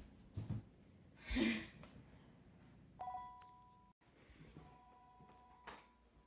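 Electronic ring of two steady tones sounding together, first for about a second until it cuts off abruptly, then again more faintly for under two seconds. A dull thump comes about a second and a half in, before the ringing.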